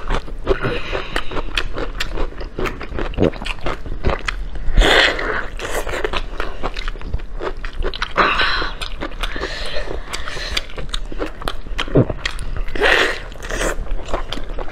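Close-up eating sounds of a braised pork trotter: biting and chewing the soft, fatty meat, with many sharp wet clicks and smacks.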